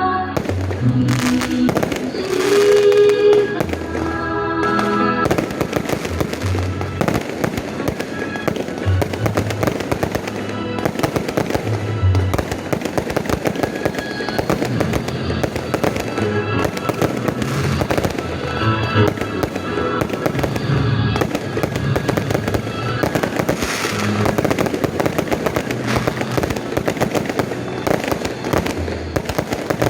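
Fireworks going off in a dense, continuous barrage of bangs and crackles, with music playing underneath, clearest in the first few seconds.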